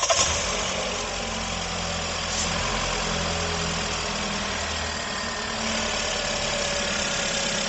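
Jeep Renegade engine idling steadily just after being started, running with a new water pump, accessory belt and both belt pulley bearings fitted; the abnormal engine noise it made before is gone.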